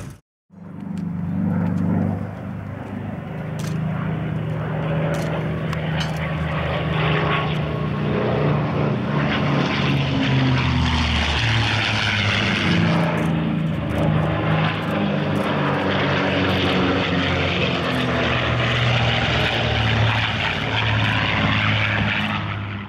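WWII propeller fighters, a P-51D Mustang with its V-12 and a P-47D Thunderbolt with its radial engine, droning steadily as they fly past, the engine pitch shifting as they go by.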